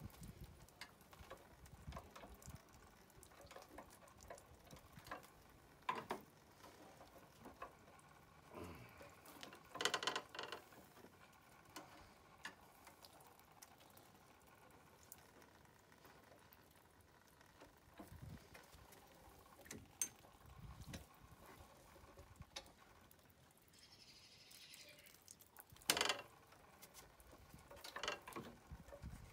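Scattered faint clicks, knocks and scrapes of a stiff, soap-soaked electric-scooter throttle hand grip being pried with a screwdriver and twisted to break it loose, with a louder knock about ten seconds in and another near the end.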